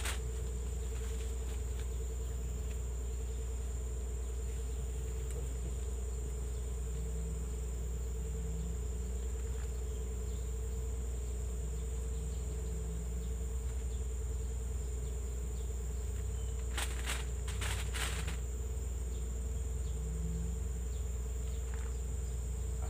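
Steady insect chorus: a continuous high-pitched whine with a lower steady buzz beneath it, over a constant low rumble. A few short clicks come about seventeen and eighteen seconds in.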